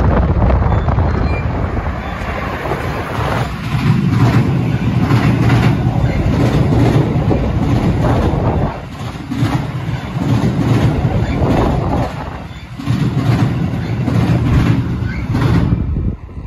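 Passenger train crossing a steel truss bridge overhead: a heavy rumble with wheels clattering over the rail joints, swelling and dipping every few seconds as the cars go by. It stops suddenly near the end.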